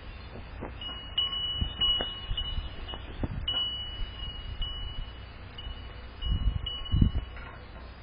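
Metal-tube wind chime ringing, struck again and again so its tones keep sounding. Two low thumps near the end are the loudest sounds.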